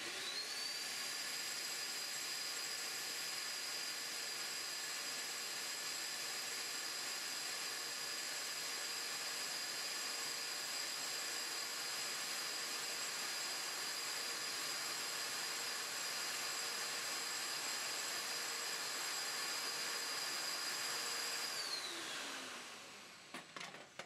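Wet-and-dry vacuum cleaner sucking residual powder off 3D-printed parts through a hose on a robot-held nozzle. The motor starts with a rising whine, runs steadily with a high whine over a hiss, then winds down with a falling whine near the end, followed by a couple of clicks.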